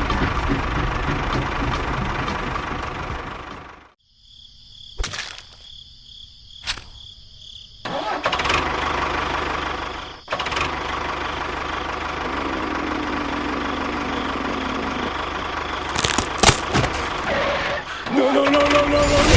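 Engine-like running noise of a small vehicle, broken by a quieter stretch of a few clicks and a high hum before the running resumes; a short pitched tone sounds near the end.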